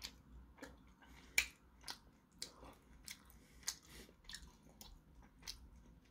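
A person chewing food close to the microphone: faint, irregular mouth clicks and smacks about two a second, a louder one about a second and a half in and another near four seconds.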